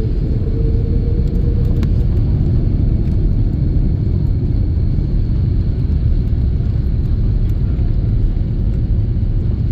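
Cabin noise of an Airbus A330-300 on its landing roll: a loud, steady, deep rumble of the Rolls-Royce Trent 700 engines and the wheels on the runway. A faint tone fades out in the first two seconds.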